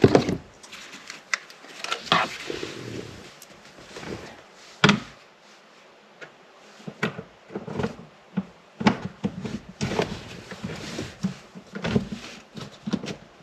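Irregular plastic clicks, knocks and scraping from handling a cabin air filter and its plastic housing behind a Mazda CX-5's glove box.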